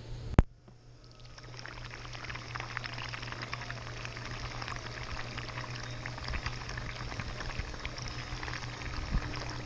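A sharp click about half a second in, then pool water gurgling and trickling with many small ticks over a steady low hum.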